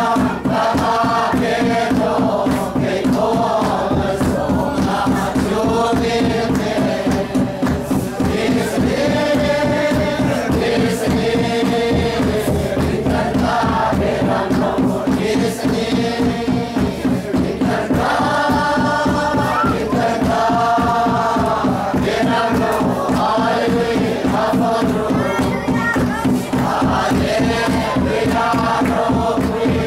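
Many voices singing together over a steady beat on a large barrel drum.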